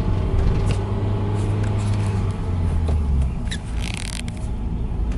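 Honda Fit being driven, heard from inside the cabin: a steady low engine and road drone with a faint, intermittent squeak from a wheel. The brother's first guess for the cause is a branch or debris caught in the wheel. A brief hiss comes about four seconds in.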